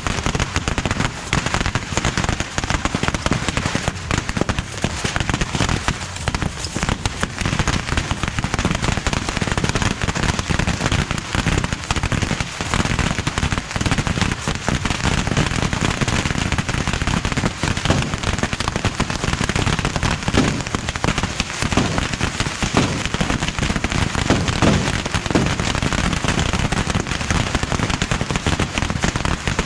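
Dense, unbroken barrage of bottle rockets and firecrackers going off by the hundreds from a beehive rocket tower, a continuous rattle of pops with no let-up.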